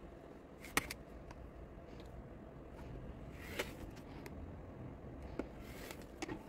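A few sharp taps and clicks as an acrylic quilting ruler and cotton fabric strips are moved about and laid down on a cutting mat, with a rotary cutter taken up near the end.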